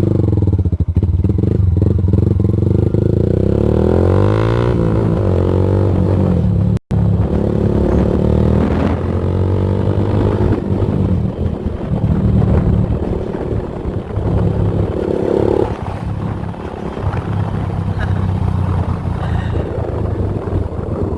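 150 cc motorcycle with an open aftermarket exhaust pipe running loudly, its pitch rising and falling as it is revved or rides past. The sound cuts off abruptly for an instant about seven seconds in.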